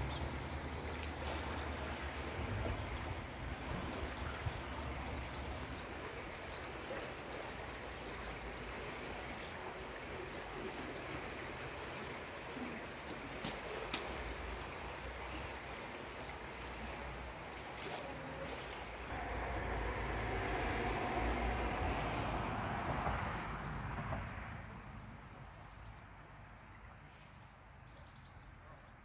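Shallow river water flowing and rippling, a steady rushing hiss, with wind rumbling on the microphone in the first few seconds. It swells louder for a few seconds past the middle, then fades much quieter near the end.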